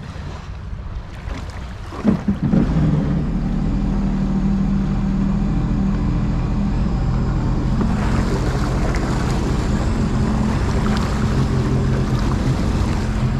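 Sea-Doo GTR 230 jet ski's supercharged three-cylinder Rotax engine starting about two seconds in, with a quick rise in pitch as it catches. It then runs steadily at idle.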